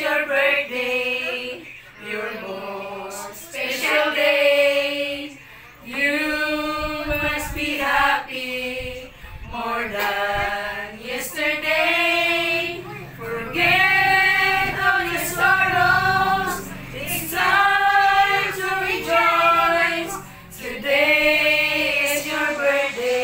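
A small group of women and men singing together unaccompanied, in held phrases with short breaks.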